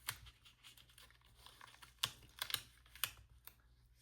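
Light clicks and taps of sticker and paper handling: stickers being peeled and pressed down onto a planner page, with a handful of sharp separate clicks, the loudest about halfway through.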